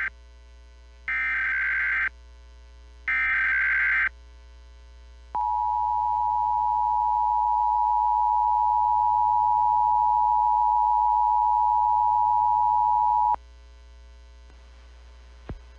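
Emergency Alert System test signal: two short bursts of the SAME digital header's data screech, then the two-tone attention signal (853 and 960 Hz) held steadily for about eight seconds and cut off sharply. A low steady hum runs underneath.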